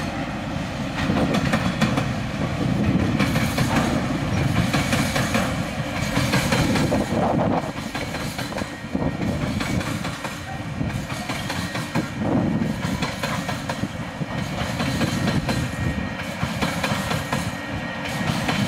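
Freight train wagons rolling past: steel wheels clicking over the rail joints, the sound swelling and dipping as each wagon goes by.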